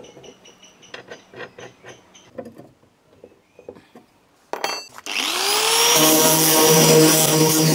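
A few light metal clicks and taps, then about five seconds in an angle grinder with a sanding disc spins up, rising in pitch, and runs steadily as it sands a fibreglass boat hull.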